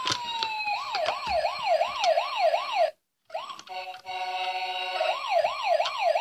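Toy fire truck's electronic siren, set off by pressing its roof buttons. A tone slides down, then a fast rising-and-falling wail at about three sweeps a second cuts off suddenly about three seconds in. After a short silence a second siren sound starts with steady tones and goes back into the wail.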